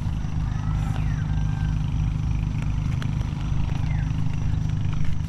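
An engine running steadily with a low drone. A few faint, short high chirps sound over it.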